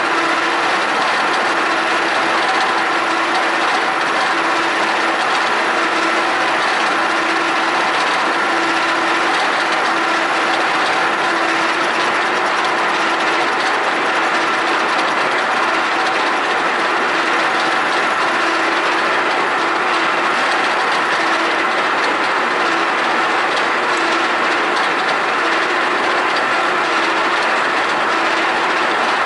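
FYD-32 milling machine running, milling a C45 steel part: a steady mechanical whine from the spindle and gearbox over a constant gritty cutting noise.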